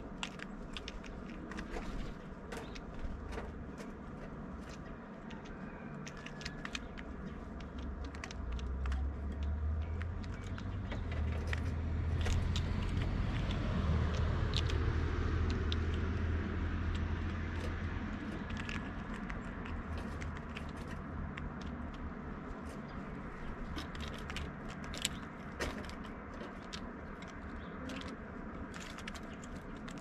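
A low vehicle rumble swells and fades through the middle, under a scatter of sharp clicks and crackles from a blue jay picking over peanuts in the shell and sunflower seeds in a stone feeder.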